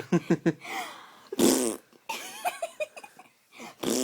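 Fart noises: a short, rapid sputter at the start, then a louder buzzing one about a second and a half in, and another near the end.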